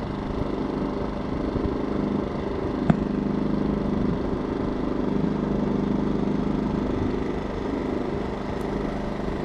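A small engine running steadily with a low hum, and a single sharp click about three seconds in.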